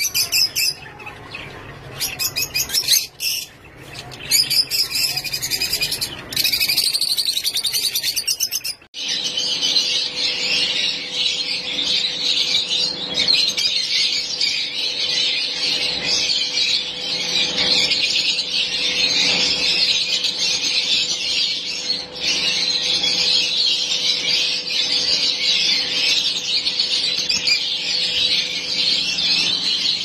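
Rosy-faced lovebirds calling: for about the first nine seconds a rapid run of high, repeated chirps close by, then, after a sudden break, a dense continuous chatter of a whole flock over a faint steady hum.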